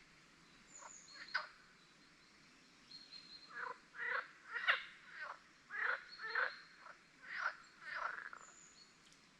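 A series of short, harsh, rasping animal calls, about a dozen in quick groups and loudest in the middle, with faint high thin bird whistles behind them.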